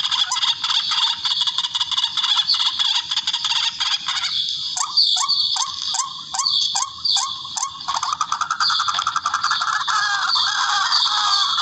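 Recorded rail (tikling) calls played as a hunting lure: a dense, continuous chorus of repeated calls. Around the middle comes a run of about eight short upswept notes, two or three a second, then a busier chatter.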